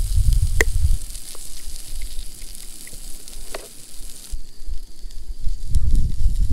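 Food cooking on a camp stove burner: a steady high sizzling hiss that drops away after about four seconds, under a low rumble, with a couple of light clicks.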